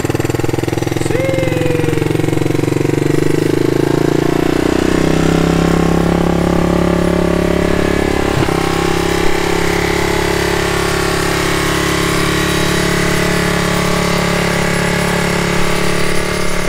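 Kawasaki Lakota Sport 300 ATV's single-cylinder four-stroke engine running just after starting. Its revs rise about four to five seconds in and stay high: it idles too fast, which the owner puts down to a throttle cable that needs replacing.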